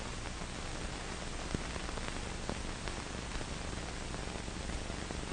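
Steady hiss with a few faint scattered clicks: surface and background noise of an old film's soundtrack.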